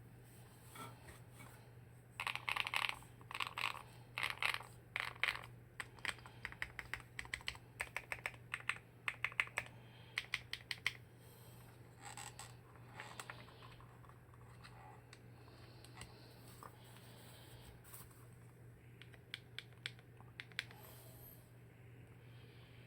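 Typing on an aluminium CNC Alice-layout mechanical keyboard, the MMD EIF68 with Princess Ultra switches: about nine seconds of quick keystrokes, then a few scattered key presses.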